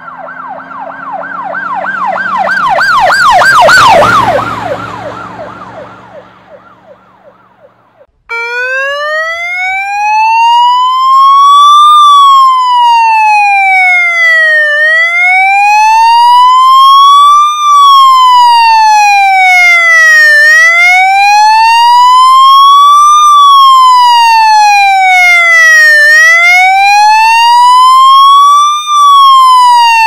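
Police car sirens. First a fast warbling yelp swells to a peak about four seconds in, then fades and cuts off suddenly. Then a loud electronic wail takes over, sliding slowly up and down, about one full cycle every five to six seconds.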